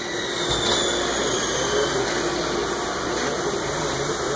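Steady running machine noise, a continuous rushing hum, with a low rumble that comes in about half a second in and holds.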